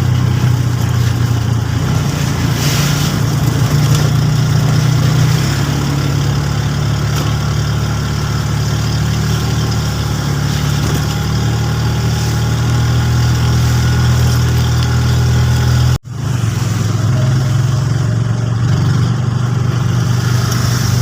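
A motor vehicle's engine running steadily with a low hum and road noise, its pitch shifting slightly about five seconds in. The sound cuts out for an instant about sixteen seconds in.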